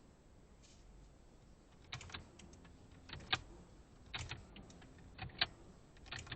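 Sharp mechanical clicks inside a Lada Vesta that has just failed to start, several of them in close pairs, coming about once a second over a faint background.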